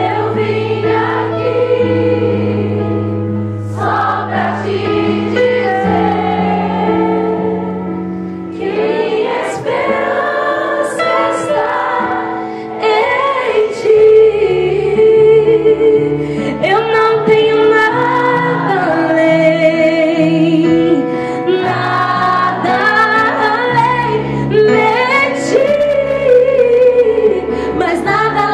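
Live gospel worship song: a woman singing over held keyboard chords, with the voice coming in after a few seconds of chords alone.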